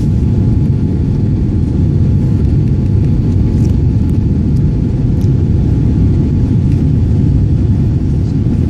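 Steady low rumble inside a Boeing 787 cabin: its engines and the airflow during the takeoff.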